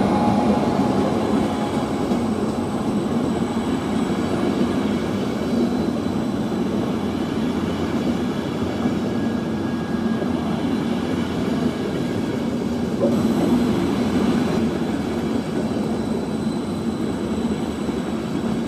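ÖBB Eurocity passenger coaches rolling past as the train arrives, a steady rumble of wheels on rails.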